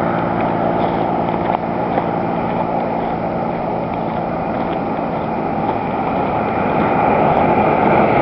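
An engine running steadily under a broad rushing noise, growing a little louder near the end.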